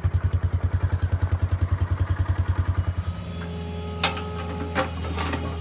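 A vehicle engine idling with a fast, even pulsing beat. The pulsing stops about three seconds in, leaving a quieter steady hum and a few light clicks.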